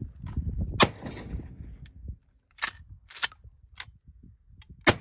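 Target-shooting gunshots: about five sharp cracks spread over the few seconds, the loudest about a second in and just before the end.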